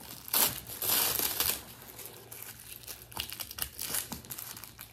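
Clear plastic wrapping crinkling and crackling as it is pulled off a leather bag strap, loudest in the first second and a half, then softer crinkles.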